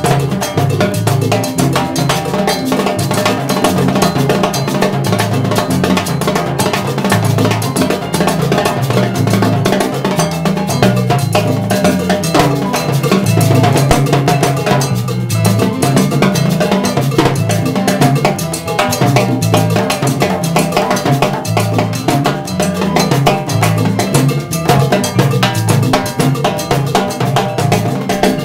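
Live salsa jam: timbales with a mounted cowbell and block struck in a dense, driving pattern over a walking electric bass line and keyboard.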